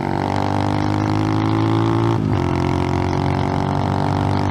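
Icebear Champion 125cc single-cylinder mini bike engine running under way with a steady droning note. The pitch climbs slightly, dips briefly about two seconds in, then holds steady.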